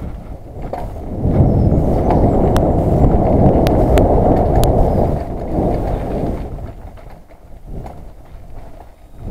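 Mountain bike rolling fast down a gravel trail: tyres rumbling over the loose surface and the bike rattling, with a few sharp clicks in the middle. It is loudest in the first half and eases off about seven seconds in.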